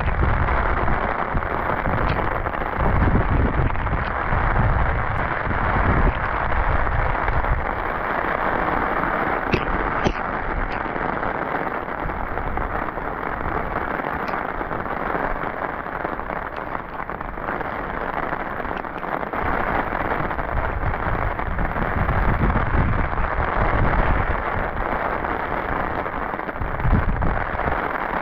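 Heavy rain falling steadily, a dense even hiss, with a deeper low rush that swells and fades now and then.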